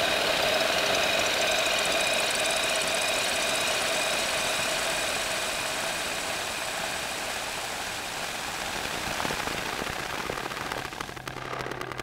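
Make Noise Strega synthesizer processing a microphone signal into a dense, noisy electronic texture with a few held tones and thin rising sweeps in the first couple of seconds. The sound slowly gets quieter as the knobs are turned, and thins out near the end.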